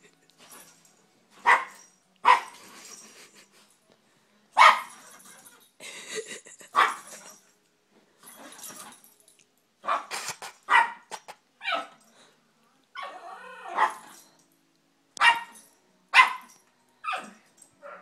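Two Yorkshire terriers sparring, barking in short, sharp yaps again and again, with quieter growling between the barks.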